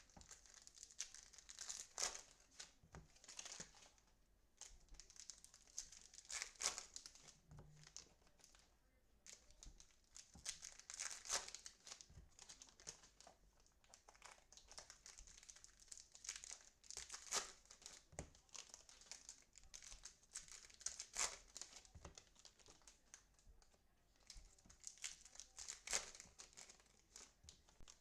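Plastic card-pack wrapping crinkling and tearing as trading-card packs are opened by hand, in a string of short irregular crackles.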